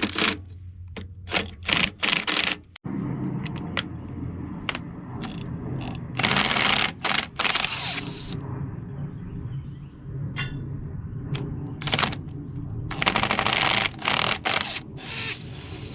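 Impact wrench hammering in repeated bursts of a second or two, running bolts into the pusher holes to press off a bearing housing on a Caterpillar No. 29 cable control unit. A steady low hum runs underneath.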